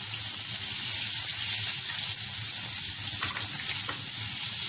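Flour-coated chicken fillets frying in hot oil in a kadai: a steady sizzling hiss, with a few light scrapes of a slotted spatula a little past the middle as the pieces are turned.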